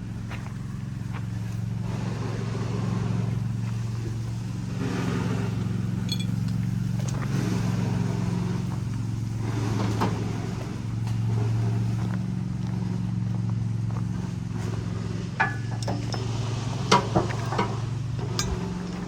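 A machine running with a steady low hum, with a few sharp metallic clicks near the end.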